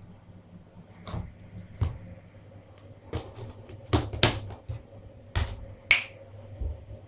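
Clear plastic tubs and their snap-on lids being handled and pressed shut: a dozen or so sharp plastic clicks and snaps. The loudest come in a quick cluster about four seconds in and once near six seconds, over a faint steady hum.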